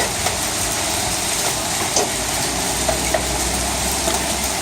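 Half-inch hail coming down hard: a dense, steady clatter of countless impacts, with scattered sharper individual hits standing out.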